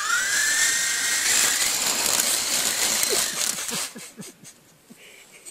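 Small toy RC helicopter with twin stacked rotors spinning up: its electric motor gives a whine that rises in pitch and then holds, over a loud rotor whir. The sound stops about four seconds in as the helicopter tips over into the grass, leaving a few faint ticks.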